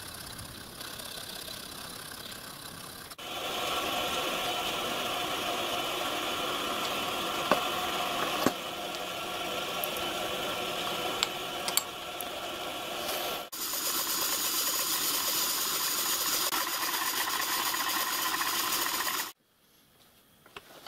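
A workshop machine running steadily, with a few sharp clicks. It gets louder abruptly about three seconds in and again partway through, then stops suddenly near the end.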